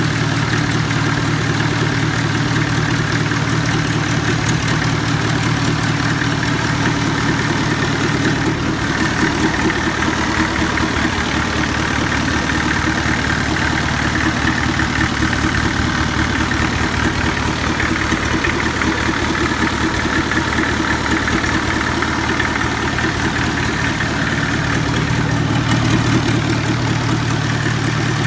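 Forklift engine idling steadily, with an even, rapid pulse.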